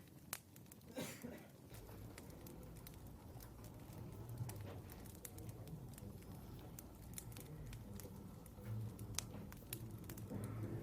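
Faint room ambience with a low steady hum and many light, scattered clicks and taps. There is a short noisy burst about a second in.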